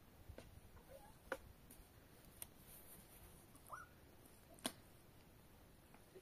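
Near silence with a few faint clicks, and a cat meowing once, short and faint, about four seconds in.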